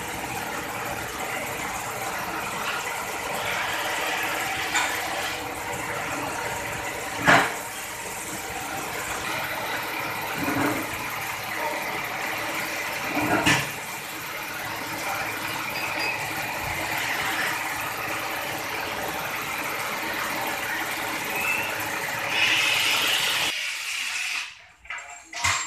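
Steady workshop machine hum with two sharp knocks and a few lighter ones as a large tractor tyre is levered into a retreading mould and a metal rim plate is fitted inside it. The hum cuts off sharply near the end.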